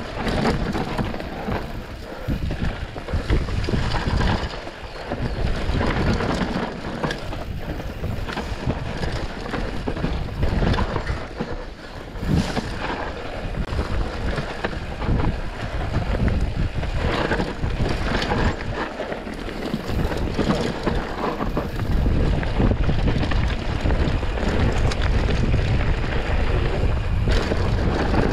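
A mountain bike rolling down a dirt singletrack trail, its tyres and frame giving a steady stream of rattles and knocks, with wind buffeting the microphone. The wind rumble grows heavier and steadier near the end.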